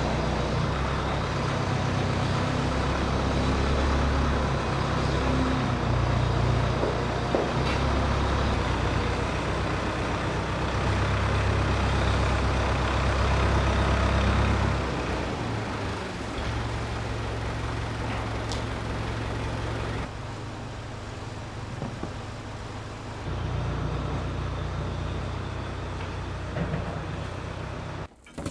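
A vehicle engine running steadily with a low rumble, louder in the first half and dropping back somewhat about halfway through.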